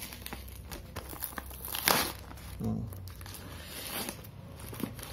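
Plastic courier mailer and its paper shipping label crinkling and tearing as they are pulled open by hand. There is a sharp crackle about two seconds in.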